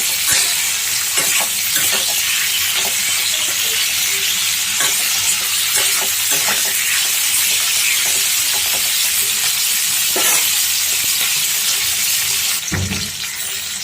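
Chopped onion, capsicum and green chilli sizzling in hot oil in a kadai on high flame, with a steady hiss and a spatula scraping and knocking against the pan now and then as it is stirred.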